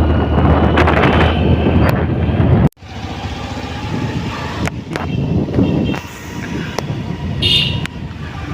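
Vehicle running with wind buffeting the microphone, cut off abruptly about a third of the way in. Road traffic noise follows, with a brief high-pitched horn toot near the end.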